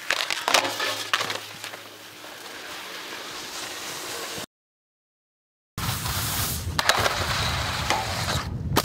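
Skis striking and grinding along a red steel pipe rail, with sharp clinks and scrapes in the first second, then skis hissing over snow. After a second of dead silence near the middle, louder rushing noise of skis sliding on snow with a low rumble of wind on the microphone.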